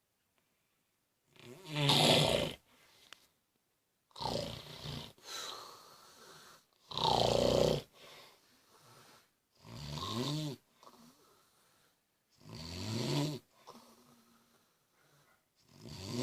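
A man snoring in his sleep. Loud, rasping snores about every two to three seconds, some rising in pitch, with near quiet between breaths.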